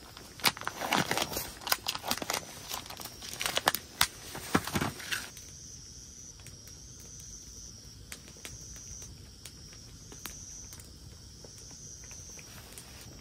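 Crinkling and rustling handling noise for about the first five seconds, then quieter, with insects chirping in high pulses about once a second.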